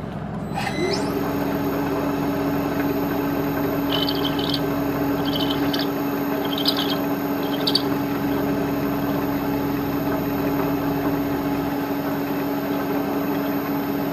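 A milling machine spindle starts up, its pitch rising briefly, then runs at a steady speed with a hum and a high whine. Between about 4 and 8 seconds in come four short high squeaks.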